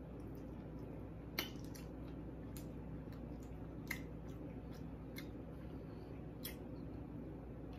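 Close-up eating sounds: wet, squishy chewing of baked ziti, with a few sharp clicks scattered through, the loudest about a second and a half in, over a steady low hum.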